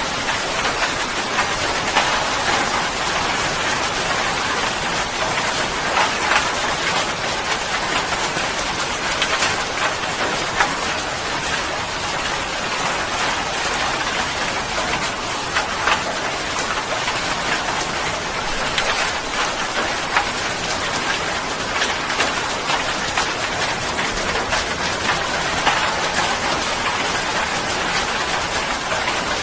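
Steady rain falling, with a constant hiss and many small drop impacts pattering on a surface.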